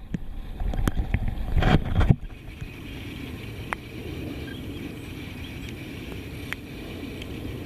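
Kayak paddling, with a few knocks and splashes in the first two seconds, the loudest about two seconds in. Then a steady hiss of wind and water.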